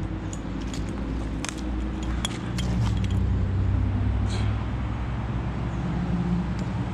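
Footsteps crunching down a bank of dry grass and twigs, with sharp cracks of snapping sticks in the first few seconds, over a steady low rumble.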